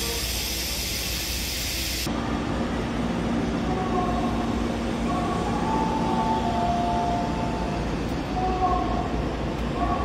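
A broad outdoor hiss cuts off about two seconds in. It gives way to the ambience of a covered streetcar stop with a Toyama city tram standing at the platform: a steady low hum, with higher whining tones that come and go.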